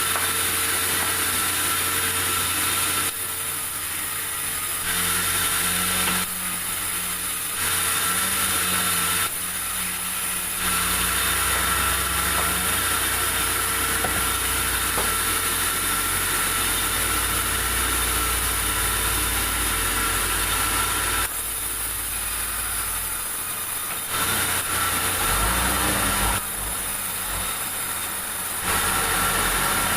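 Sawmill machinery running steadily, its saw cutting durian wood. A low motor hum sits under a high hiss, and the sound shifts in character every few seconds.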